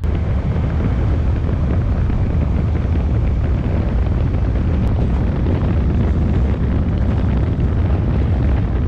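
Wind buffeting the microphone of a handlebar-mounted camera on a 1991 Kawasaki Voyager XII motorcycle riding at road speed: a loud, steady low rumble of wind, engine and road noise.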